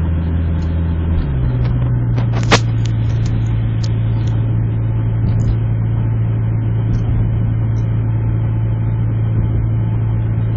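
Steady low drone of a Honda Civic's engine and road noise inside the cabin while driving. The engine note shifts to a different steady pitch about a second in. One sharp click sounds about two and a half seconds in.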